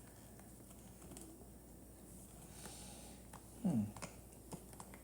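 Faint scattered clicks and taps of a plastic toy Mosasaurus being handled, its fins being moved. About three and a half seconds in there is one short, louder sound that drops steeply in pitch.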